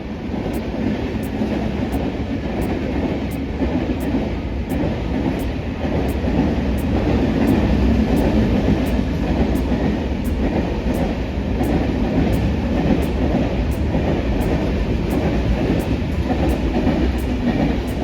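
Train running along the track: a steady, loud rumble of wheels and carriages, a little louder from about six seconds in.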